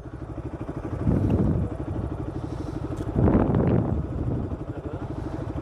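Motorcycle engine idling with a steady, even beat. Two louder, noisy swells rise over it about a second in and again past the halfway mark.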